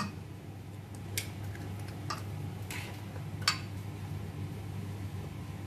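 A few faint, short clicks and light knocks of kitchen dishes and utensils being handled, about one a second, over a steady low hum.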